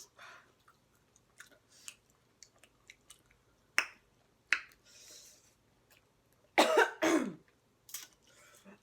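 Mouth sounds of someone eating spicy chicken: small wet clicks and smacks while chewing, a couple of sharp clicks and breathy sniffs. About two-thirds of the way in come two loud voiced coughs as the hot sauce catches in the throat.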